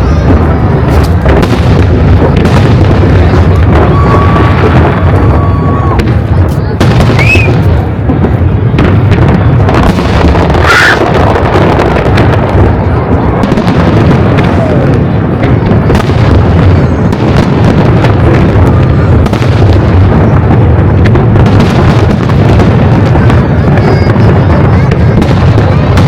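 Fireworks display in a dense, continuous barrage: overlapping booms and crackling bursts with no gaps between them, and a few whistling shells rising in pitch, one about seven seconds in and a louder one about ten seconds in.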